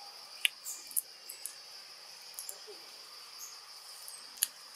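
Steady high-pitched chorus of insects, crickets by its sound, with several short sharp ticks over it, the loudest about half a second in, a second in, and near the end.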